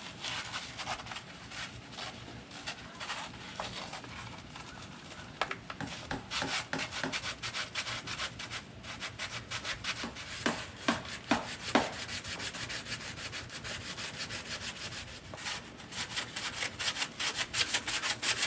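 Sandpaper rubbed back and forth by hand, sanding light corrosion out of the metal pin holes of a front loader mount. Quick scratchy strokes, several a second, with the strokes coming louder and denser near the end.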